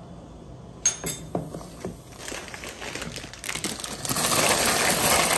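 A wooden spoon stirring salt into a stainless steel pot of boiling water: a sharp knock about a second in and a few clatters, then a louder, dense rush of noise that builds near the end.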